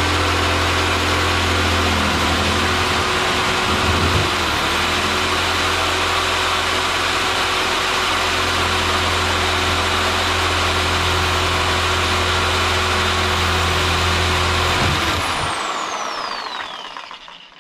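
Electric power tool's motor running steadily at full speed while an over-long bolt is cut to length, with a brief dip in speed about four seconds in. About fifteen seconds in it is switched off, and its high whine falls away as it spins down.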